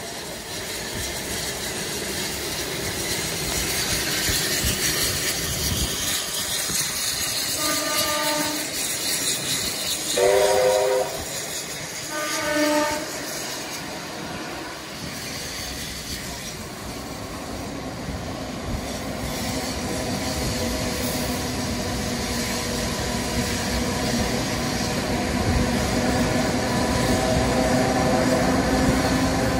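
A train running, sounding three short blasts of several notes at once about eight, ten and twelve seconds in, the middle one loudest. The running noise grows louder toward the end.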